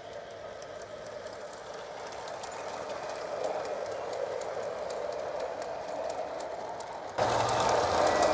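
Gauge 1 model goods train of loaded coal wagons rolling along garden track: a steady rumble of wheels that grows louder as it passes, with quick light clicking over the rail joints. About seven seconds in it jumps suddenly louder.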